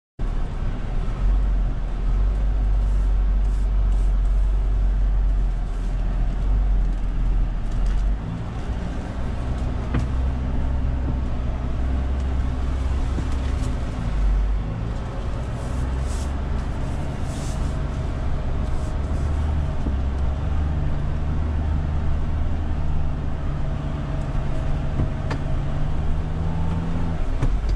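Mahindra Thar's engine running steadily, heard from inside the cabin while it drives over a rough dirt track, its pitch stepping up and down a few times with the throttle. A few light knocks come through now and then.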